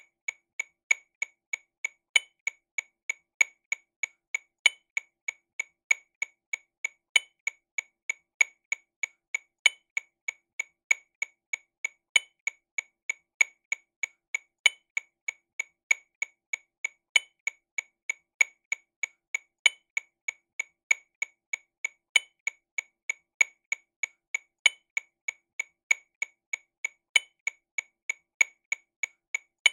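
TAMA RW200 Rhythm Watch metronome click sounding sixteenth notes at 48 BPM: a steady stream of short clicks about three a second, with a louder accented click on each beat, every fourth click.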